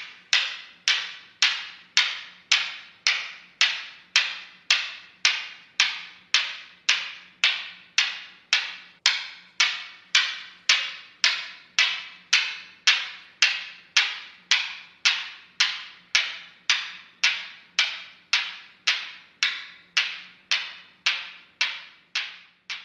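Newton's cradle: its steel balls clack together in a steady, even rhythm of nearly two sharp clicks a second, each dying away quickly.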